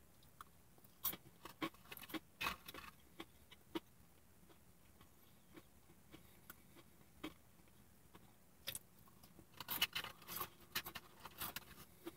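Quiet chewing of crisp fried tater rounds, with soft scattered crunches and clicks, and a paper food sleeve crinkling in the hand; a cluster of louder rustles comes near the end, as he reaches into the sleeve for another.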